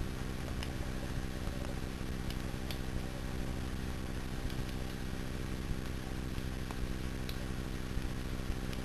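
Tap running steadily: a constant rush of water with a steady low hum under it and a few faint ticks.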